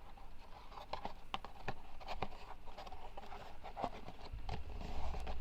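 Cardboard pieces being handled and pressed together while being glued: a run of scattered light taps, clicks and scrapes, with a low rumble near the end.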